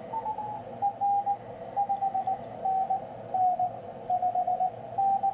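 Morse code (CW) signal received on a Yaesu FTDX10 HF transceiver: a single tone keyed on and off in dots and dashes over band hiss in the radio's narrow receive passband. The tone's pitch dips a little lower midway through and then comes back up.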